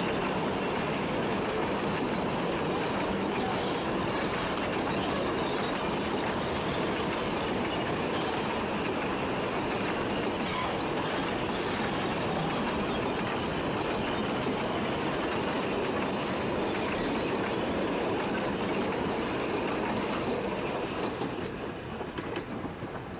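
Narrow-gauge wooden passenger carriages rolling past at close range, their wheels rumbling and clattering along the rails. The sound fades away over the last couple of seconds as the end of the train passes.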